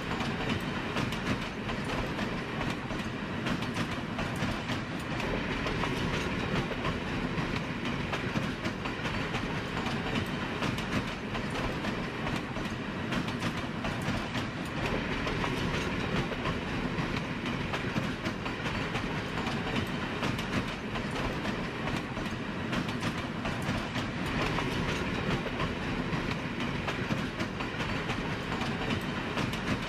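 Steady running noise of a train in motion, a continuous rumble with dense clatter from the wheels on the track.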